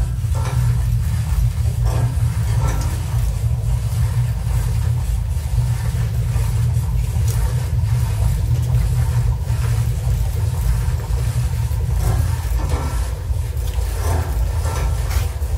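Electroacoustic sound collage played back: a loud, steady low rumbling drone with faint irregular crackles and clicks above it, layered from processed recordings of a historic laundry mangle turning with plastic bottles squeezed between its rollers.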